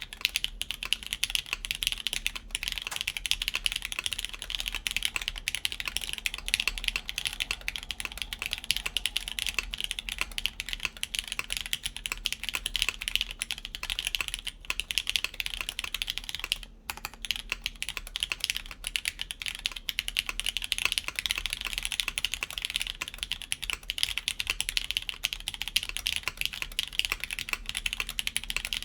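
Continuous fast typing on a mechanical keyboard with lubed Cherry MX Black linear switches and GMK keycaps on a polyethylene (UHMWPE) plate, giving dense key clacks with a brief pause about 17 seconds in.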